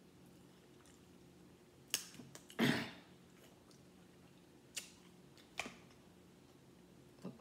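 A person eating close to the microphone: a sharp click about two seconds in, a louder wet mouth sound just after it, and three lighter clicks and smacks later.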